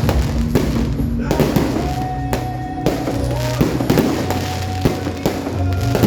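Fireworks going off in a quick string of bangs and crackles, over music with held notes and a steady bass.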